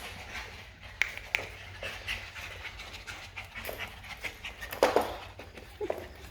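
Shiba Inu puppies panting at play, with scattered short clicks and a louder scuffle about five seconds in.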